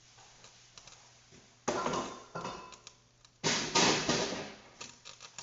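Two short scraping clatters of kitchen utensils, a couple of seconds apart, each fading quickly.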